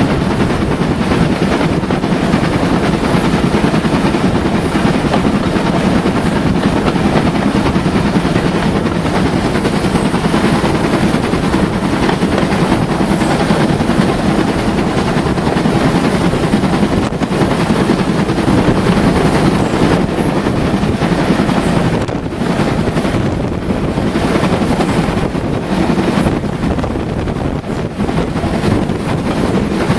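Steady loud rumble and rush of a moving train, with wind buffeting the microphone.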